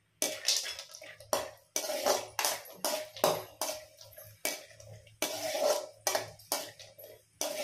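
Perforated metal ladle scraping and clinking against a kadai as cashew pieces are stirred in ghee, in quick repeated strokes about two a second.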